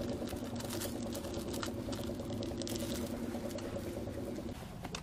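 A steady motor drone that stops shortly before the end, with small crinkles and clicks of a seasoning sachet being torn open over a plastic bowl and a spoon stirring in the bowl.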